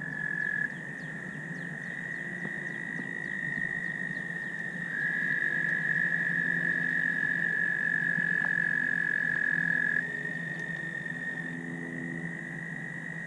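Chorus of American toads giving long, high, steady trills that overlap one another, with one louder trill from about five to ten seconds in. This is the spring breeding chorus of calling male toads.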